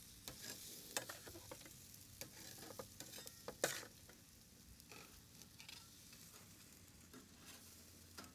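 Oiled salmon steaks sizzling faintly on a wire grill over charcoal, with scattered crackles and clicks; the sharpest snap comes about three and a half seconds in.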